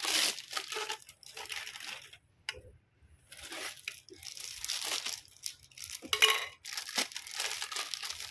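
Plastic wrapping crinkling and rustling in irregular bursts as vacuum cleaner extension tubes in their plastic bags are handled and unwrapped. There is a short pause a little after two seconds and a louder rustle around six seconds in.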